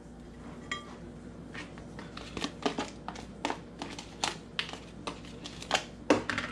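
Clear plastic bag crinkling as it is handled, an irregular run of sharp crackles that grows louder toward the end.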